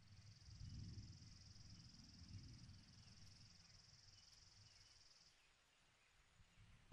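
Near silence: faint room tone with a faint, steady, high-pitched trill that stops about five seconds in.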